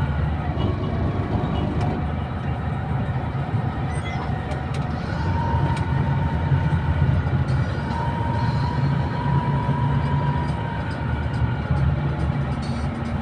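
Steady low engine and road drone heard from inside a moving bus, with a faint high whine that comes and goes.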